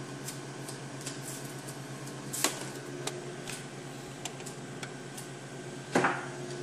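Steady hum of a powered-up digital color laser label press and its computer, waiting for the print job, with scattered light clicks. A sharper click comes about two and a half seconds in, and a dull bump near the end.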